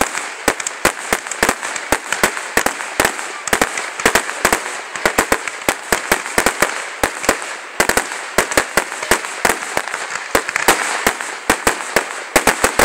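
Aerial fireworks bursting in rapid succession: sharp bangs, several a second, over a continuous crackle.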